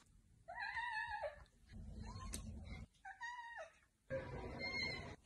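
A cat calling with two drawn-out meows, one about half a second in and another around three seconds, while carrying a toy in its mouth.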